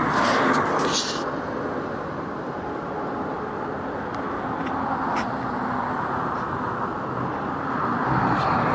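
Steady road noise of a vehicle being driven, swelling in the first second and again near the end, with a few faint clicks.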